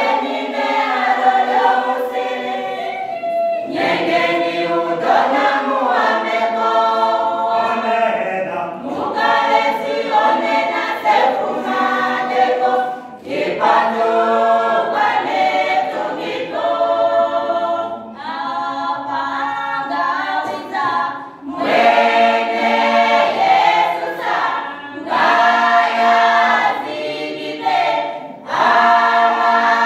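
A choir of mostly female voices singing a cappella, with no instruments, in phrases a few seconds long separated by short breaths.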